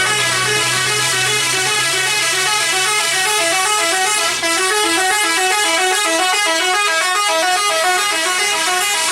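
Bus telolet basuri melody horn playing a fast, continuous tune of short stepped notes, with a brief break about four seconds in.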